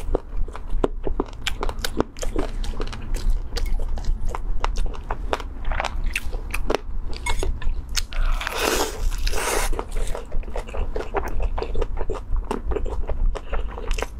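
Close-miked crunching and chewing of a deep-fried rice-stuffed chicken wing with crispy skin: a steady run of small crackly crunches, with a louder, longer crunch of a fresh bite about eight seconds in.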